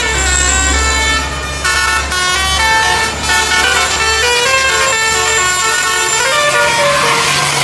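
Basuri telolet horn, a multi-trumpet musical air horn on a bus, playing a melody of quick stepped notes over a low steady engine hum, with a hissing rush of air near the end.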